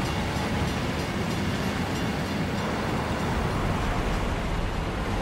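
A car running steadily as it drives, a continuous engine and road noise with no change in pace.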